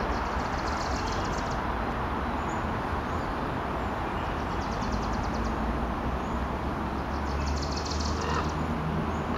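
Steady rush of a shallow stream running over rocks. Over it, an animal gives a rapid, high-pitched ticking trill three times, each bout lasting about a second.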